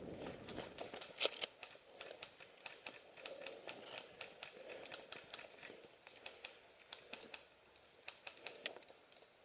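Dry leaves and twigs crackling and rustling as a person moves over the forest floor and settles into a crouch, with one louder snap about a second in. The crackling thins out toward the end.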